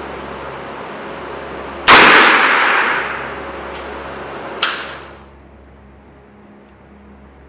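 Two shots from a .36 calibre black powder revolver (1847 Uberti Navy replica): a loud first report about two seconds in that rings on and dies away over about a second and a half, then a shorter second shot a little under three seconds later.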